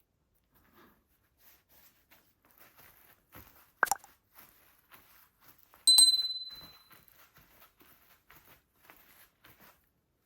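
Faint rustling and handling noises as football boots and their packaging are handled, with a sharp click about 4 s in. About 6 s in comes a sudden, loud, bright ding that rings and fades over about a second.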